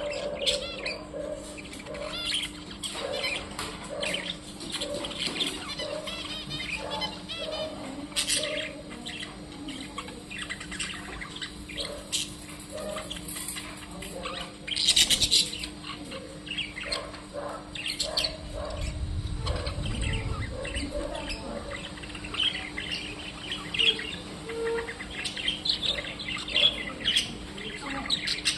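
Small birds chirping and twittering continuously, with many short, quick calls overlapping, over a steady low hum.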